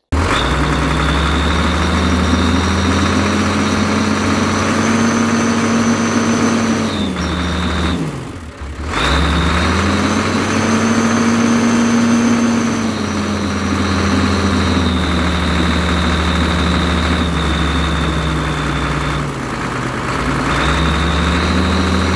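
Ford/New Holland 7840 tractor engine running through a Case 956 vertical exhaust stack, revved up and down, dropping back sharply twice. A high steady whistle from the exhaust comes in while the revs are up and fades when they fall.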